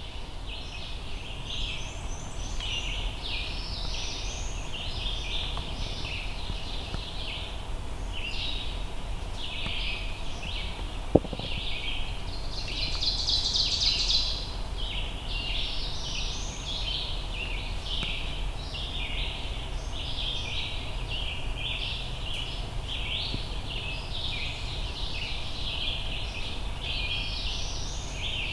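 A chorus of small woodland birds singing continuously, high-pitched, with one louder song about thirteen seconds in. A single sharp click sounds about eleven seconds in.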